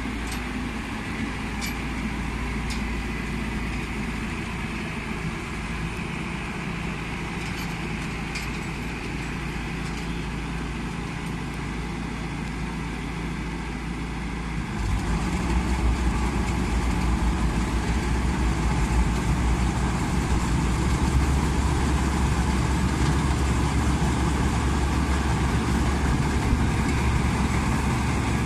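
Diesel engine of a Maxxi NDR 102L crawler combine harvester running steadily as the machine creeps down loading ramps. About halfway through, the engine gets louder and deeper, throttled up under load.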